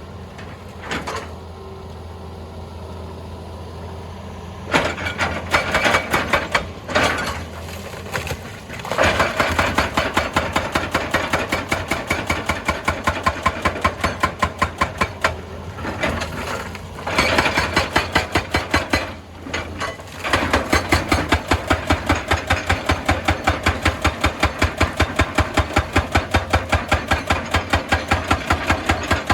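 Hydraulic rock breaker on a Hitachi EX200 excavator hammering rock in rapid, regular blows, about five a second, over the excavator's steady engine drone. The hammering starts and stops several times during the first two-thirds, then runs without a break for the last third.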